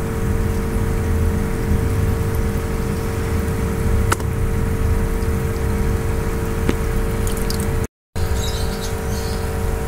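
Steady machine hum with a low rumble and a constant mid-pitched drone, a couple of faint ticks, and a brief cut-out a little before the end.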